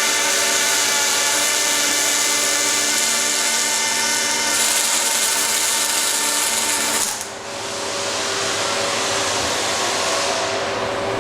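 Machinery running with a steady whine of several held tones over a hiss. About seven seconds in it dips briefly and changes to a different steady hiss with a lower hum.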